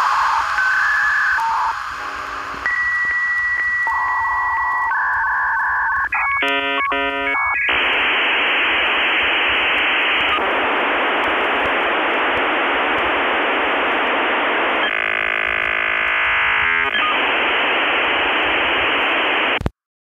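Telephone-line sounds of a dial-up modem handshake: a series of steady beeping tones and a quick burst of dialling tones, then a long loud hiss of data with a brief warbling stretch. It cuts off abruptly near the end.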